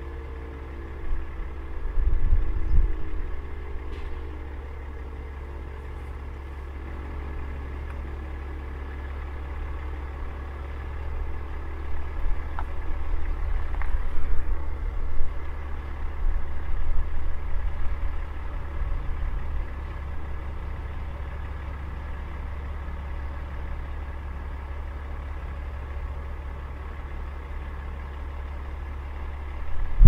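Semi-trailer truck's diesel engine idling steadily. In the first few seconds the faint falling tone of a Sentry 10V siren winding down dies away. There are louder low rumbles about two seconds in and again through the middle.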